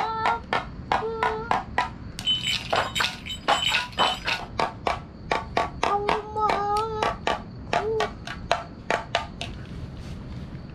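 Quick taps and clicks, about three to four a second, from a toddler working a small hand-held object, mixed with the child's short high-pitched vocal sounds; it stops about 9.5 seconds in.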